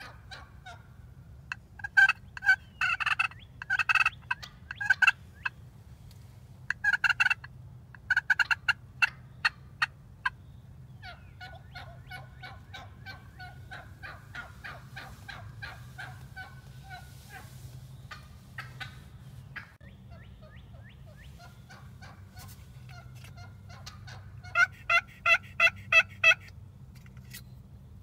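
Wild turkeys gobbling and calling: several loud bursts of rapid notes in the first ten seconds, softer rapid calling through the middle, and a loud series of about six evenly spaced notes near the end. These are toms and hens answering a hunter's calls.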